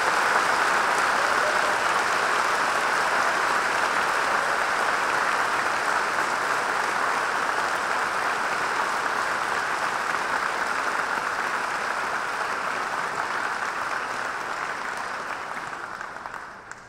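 A large audience applauding steadily, the clapping slowly thinning and then dying away near the end.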